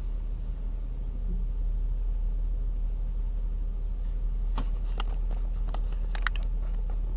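Jeep engine running low and steady, heard from inside the cab. From about four and a half seconds in comes a quick run of sharp cracks as the trail's ice sheet breaks under the tyres.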